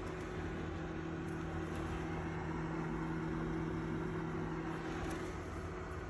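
Simplus 2.5 L compact dehumidifier running: a steady fan hum with a constant low tone.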